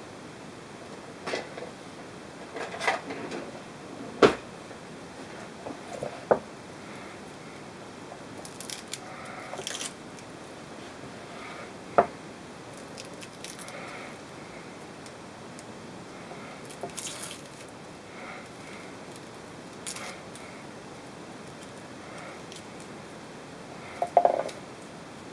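Garlic cloves being peeled by hand on a wooden cutting board: scattered sharp taps and clicks as cloves and a kitchen knife knock against the board, a small cluster of them near the end, with faint rustling of the skins in between.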